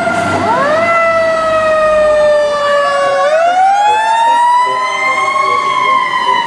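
Fire truck sirens wailing as a fire engine and a ladder truck respond with lights on. Several siren tones overlap, each slowly falling or rising in pitch, with a new one sweeping up about half a second in and another rising about three seconds in.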